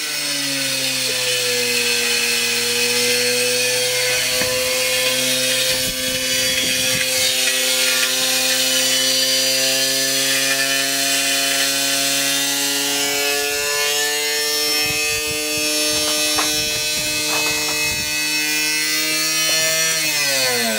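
Washing machine spinning at high speed with a piece of pipe in the drum: a steady motor whine, with knocking and rattling in the second half. Near the end the whine falls in pitch as the drum winds down.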